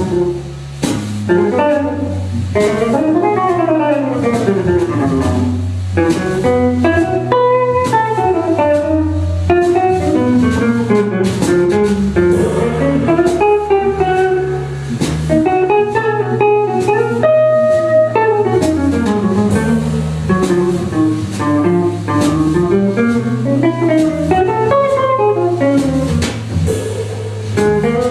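Jazz organ trio playing live: an archtop electric guitar plays fast melodic runs that rise and fall, over organ bass notes stepping steadily underneath and a drum kit with cymbals.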